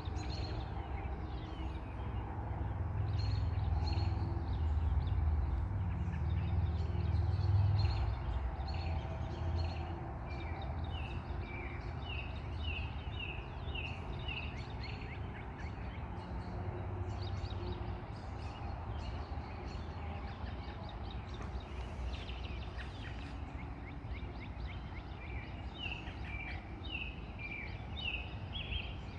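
Evening birdsong: several birds chirping, with runs of quick, short, repeated falling notes. A steady low rumble lies underneath, heavier for the first several seconds.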